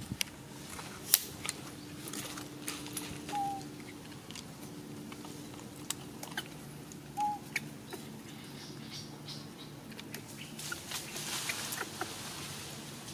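Light rustling and crackling in dry leaf litter with scattered sharp clicks, the loudest about a second in. Two brief high chirps come a few seconds apart over a low steady hum.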